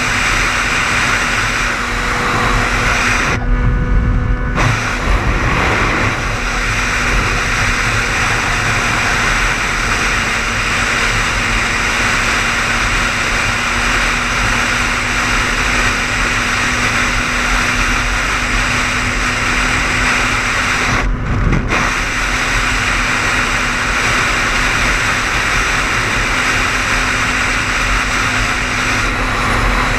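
Car driving at highway speed: a steady hiss of tyre and road noise with a low engine hum. The hiss briefly drops away twice, about four seconds in and again about twenty-one seconds in.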